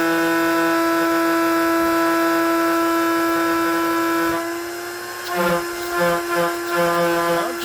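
Electric blower fan motor running at full speed with a steady high whine, tested with its clogged filter removed. Over the last two or three seconds a lower hum cuts in and out unevenly under the whine.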